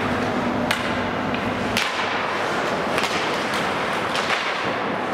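Ice hockey being played: sharp clacks of sticks hitting the puck and ice, about one a second, over the steady hiss of skates on the ice. A low hum stops about two seconds in.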